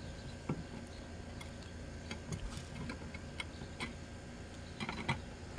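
Faint, irregular small clicks and taps of a screwdriver and wires against a metal electrical box, as the terminals of a generator inlet box are worked, over a steady low background noise.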